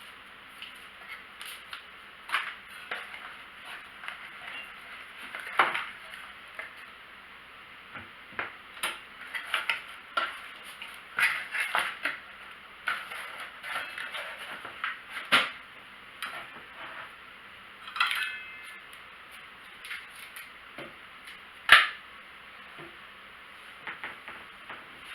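Metal hardware being handled: scattered clicks, knocks and light metallic clinks, one ringing briefly about three-quarters of the way through, over a steady hiss.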